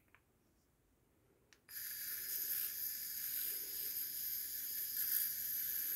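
A Ferrex cordless rotary tool switches on about two seconds in and runs with a steady high-pitched whine and hiss, spinning a new Bronson Raw skateboard bearing to break it in. A few faint clicks come before it starts.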